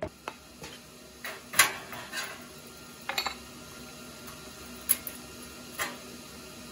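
A handful of separate metallic clinks and knocks from sheet steel being handled and knocked together; the loudest comes about a second and a half in.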